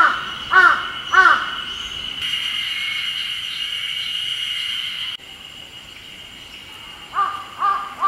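A crow cawing, three harsh caws in the first second and a half and three more near the end, over a steady high-pitched cicada chorus that swells for a few seconds in the middle.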